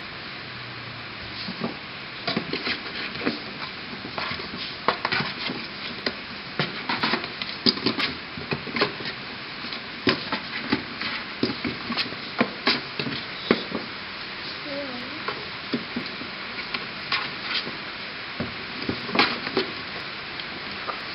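Kittens playing: irregular scratching, tapping and light knocks of claws and paws against cardboard boxes and a fleece blanket, over a steady background hiss.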